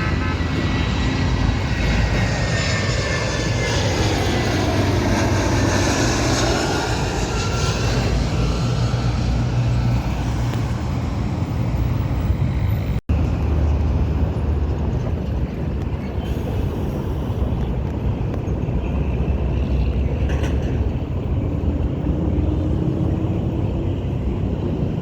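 A jet airliner passes low overhead on landing approach, its engine whine falling in pitch as it goes by. After a brief dropout about halfway through, a steady low rumble carries on.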